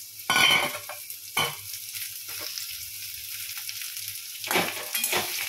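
Diced ridge gourd and potato sizzling in hot oil in a metal wok, with a flat metal spatula scraping against the pan as they are stirred. There are several scrapes: the loudest is just after the start, another about a second and a half in, and a cluster near the end.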